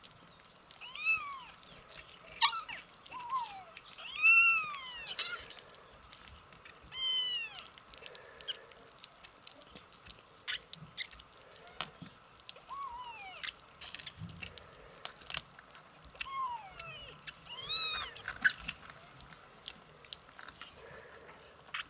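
Four-week-old kittens mewing repeatedly, short high cries that rise and fall in pitch, several close together in the first few seconds and more again later, with small clicks and smacks of them eating wet food between the cries.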